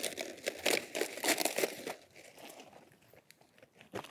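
Crisp leaves of a head of Danish cabbage crunching and crackling as it is cut from its stalk and pulled free. A quick run of crackles fills the first two seconds, then it goes quieter, with one sharp snap near the end.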